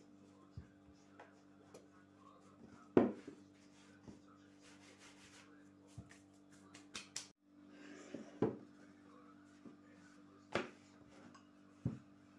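Wooden rolling pin rolling out dough on a tabletop: soft rubbing broken by short knocks of the pin against the table, the loudest about three seconds in. A steady low hum runs underneath.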